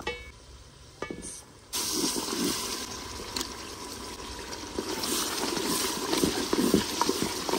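Boiled mutton sizzling in hot fried onion-tomato masala in an aluminium cooking pot. The loud, steady hiss starts suddenly about a second and a half in and goes on while a wooden spoon stirs the meat.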